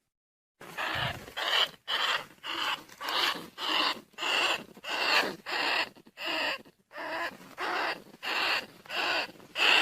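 Rat squeaking calls played as a lure for field rats and bandicoot rats. The short, harsh squeaks repeat about twice a second, starting about half a second in.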